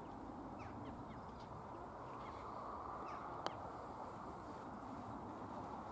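A putter striking a golf ball once, a single short sharp click about halfway through, over steady outdoor background noise and faint bird calls.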